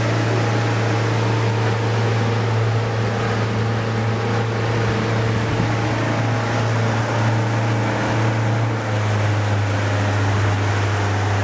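Boat motor running at a steady speed, a constant low drone over the rush of water and wind.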